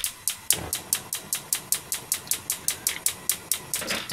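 Gas hob's spark igniter clicking rapidly and evenly, about six clicks a second, as the burner is being lit.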